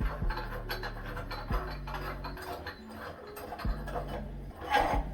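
Background music with a steady bass beat, over light clicking and ticking as a glass bulb cover is threaded onto a metal light fixture.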